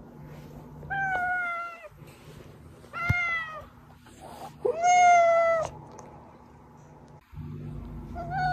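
A domestic cat meowing: three drawn-out meows about two seconds apart, most sliding slightly down in pitch, and a fourth beginning near the end, over a faint low hum.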